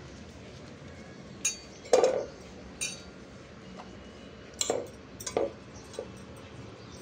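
Stainless steel plate and bowl clinking and knocking about six times while green chillies are scraped off the plate into the bowl. The loudest knock comes about two seconds in.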